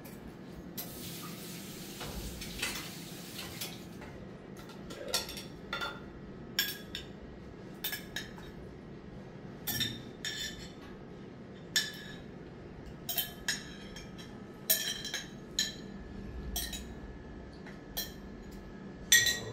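Dishes and pots clinking and knocking together as they are handled, in irregular single strikes with a short ring, after a couple of seconds of rushing noise near the start.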